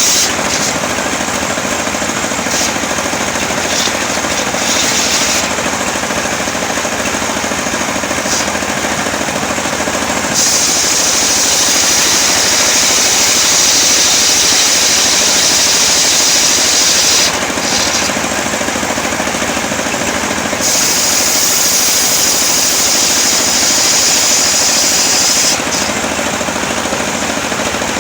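Engine-driven circular sawmill blade ripping a coconut-wood log, running continuously. A high hissing whine comes and goes in several long stretches over the steady engine noise.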